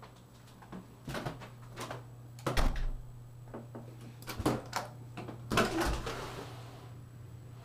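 A series of knocks and clatters, about eight in all, the loudest about two and a half seconds in, over a steady low hum. A soft hiss comes up near the end.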